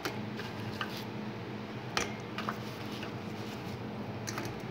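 Fried mathri pieces set one by one into sugar syrup in a steel bowl: a few light clicks and taps of the pieces against the steel, the sharpest about two seconds in, over a steady low hum.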